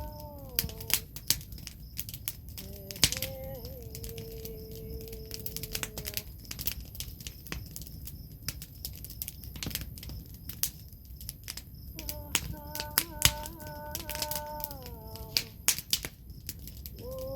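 Wood fire crackling and popping with sharp irregular snaps, while a woman hums: a note sliding down near the start, one long held note a few seconds in, and another falling phrase near the end.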